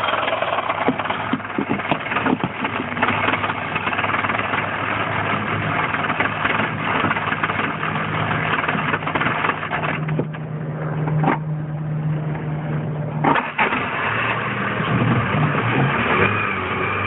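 Land Rover Freelander's 1.8 K-series four-cylinder petrol engine running roughly, with a steady drone under an uneven, clattering noise. The roughness is a symptom of a failing fuel pump starving the engine of fuel pressure.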